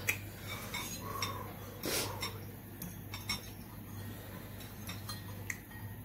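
Forks and a spoon clinking and scraping against ceramic bowls while noodles are eaten, in scattered short clicks, with one louder, noisier sound about two seconds in. A steady low hum runs underneath.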